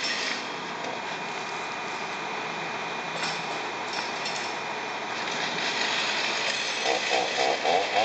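Steady running noise of track-construction machinery, with a few short metallic clinks of tools about three to four seconds in and men's voices near the end.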